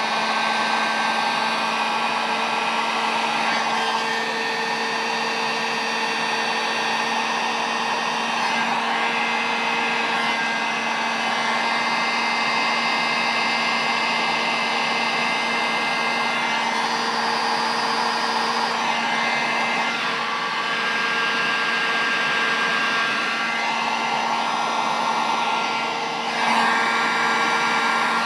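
Drill Master heat gun running steadily, a rush of hot air over a constant motor hum, as it shrinks heat-shrink tubing over a soldered wire splice.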